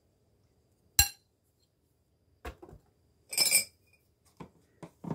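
Kitchenware being handled: a ceramic mixing bowl and silicone spatula clinking and knocking. One sharp clink about a second in is the loudest, followed by a brief ringing clink and several lighter knocks.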